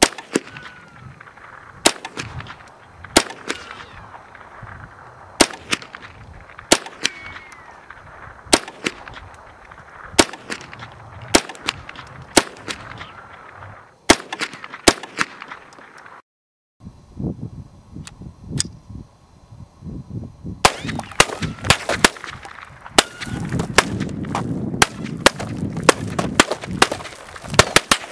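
Smith & Wesson M&P15-22, a semi-automatic .22 Long Rifle rifle, firing a string of single shots about one to two seconds apart. A brief break comes a little past the middle, and near the end the shots come faster.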